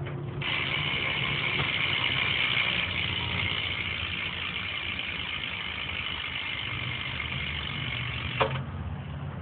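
BMX rear hub freewheeling, its pawls ratcheting in a fast, continuous, pretty loud buzz as the wheel spins. It starts about half a second in and cuts off with a knock near the end.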